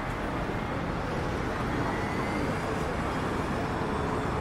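Steady city street ambience of road traffic running past, with a faint steady hum joining about three and a half seconds in.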